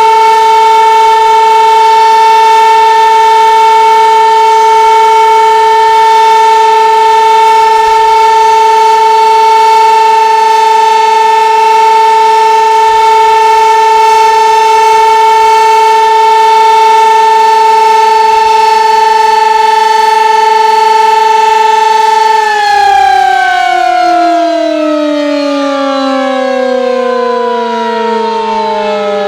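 Sentry 15V2T-B DC-powered rotating outdoor warning siren sounding a loud steady tone on its alert. About three quarters of the way through, the tone starts to wind down, its pitch falling steadily as the rotor slows.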